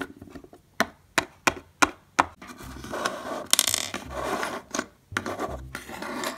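Small plastic toy figure tapped down on a tabletop five times as it is hopped along, then a stretch of rattling and rubbing of small plastic toy pieces being handled and set down.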